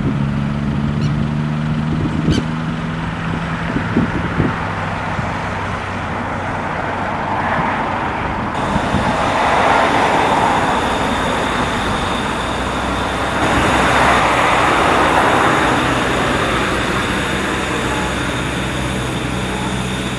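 Steam hissing from a miniature steam locomotive standing at the shed, swelling twice, after a stretch of low steady hum broken by a few knocks.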